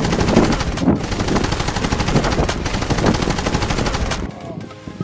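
A loud, rapid rattle of clicks that cuts off suddenly about four seconds in.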